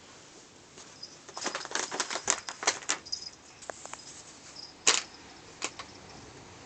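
Plastic cat-treat pouches crinkling as a cat paws and steps on them: a quick run of crackles in the first half, then two louder single crinkles later on.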